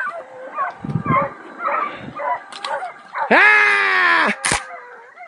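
Hunting dogs baying on the trail of a wild boar. Scattered short, distant yelps come in the first couple of seconds, then one long, loud bay a little past three seconds in that rises, holds and falls away.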